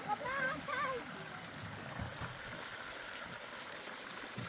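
A high voice speaking briefly at the start, then a steady wash of running water with a few soft low thumps.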